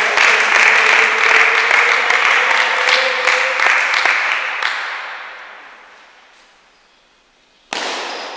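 Applause from a crowd in a hall, many hands clapping, loud at first and fading away over a few seconds. A sudden louder sound cuts in near the end.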